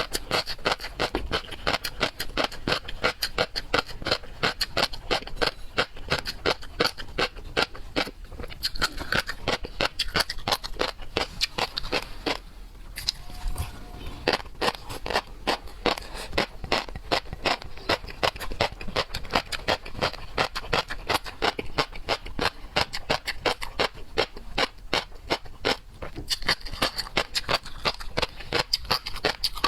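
Close-miked eating sounds of seafood being chewed: a dense run of wet, rapid clicks and crackles, with a brief pause about thirteen seconds in.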